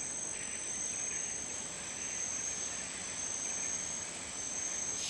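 Insects calling: a steady, high-pitched drone of two unbroken tones over a faint hiss.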